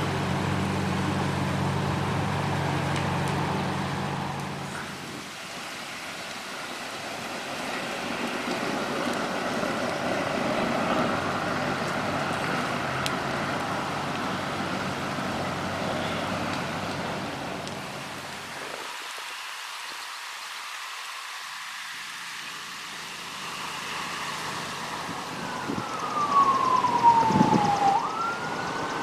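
Burning riding lawnmower, the fire sounding as a steady rushing crackle, with a low engine hum in the first few seconds. Near the end an emergency-vehicle siren wails, sweeping down then up, along with a few heavy thumps.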